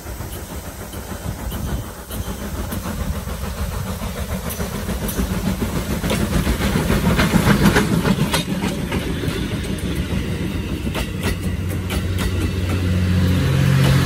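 D51 steam locomotive working past close by, its exhaust beats and running gear growing louder as it approaches and loudest about eight seconds in. Its passenger coaches then roll by with steady wheel clatter and rumble on the rails.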